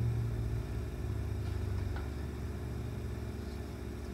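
Steady low hum of the meeting room's background noise, with a faint click about two seconds in.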